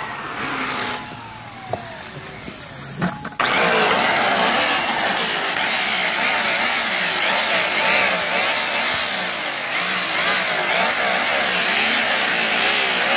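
High-speed grinder with a white buffing wheel, its whine falling as the wheel spins down for the first few seconds, then switched back on abruptly about three and a half seconds in and running loud and steady as the wheel buffs aluminium lettering.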